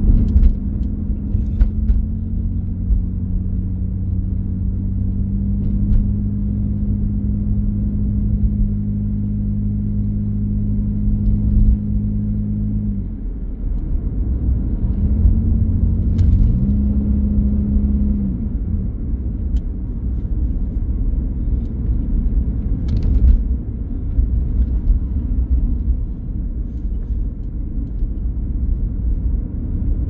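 Car interior while driving: steady tyre and road rumble with a low engine hum. The hum drops away a little before halfway, returns briefly a few seconds later, then leaves only the road rumble. A few faint clicks are heard.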